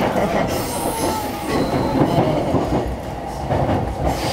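JR East E233-series electric train heard from inside the car while running: a steady rumble of wheels on rails with a few sharp clicks over rail joints, and a brief high wheel squeal about half a second in.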